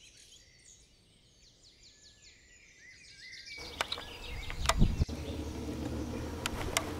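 Several songbirds singing, with short chirps and trills overlapping. About three and a half seconds in, the sound cuts abruptly to a louder, steady rushing noise with a few sharp knocks.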